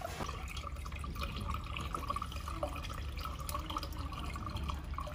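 Water pouring from a large plastic bottle into the filler neck of a laser welder's water chiller tank, a steady trickling splash with little drips, over a low hum.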